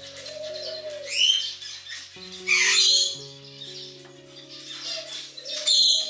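A young cockatiel calling three times, short loud high calls about a second in, in the middle and near the end, over background music with steady held notes.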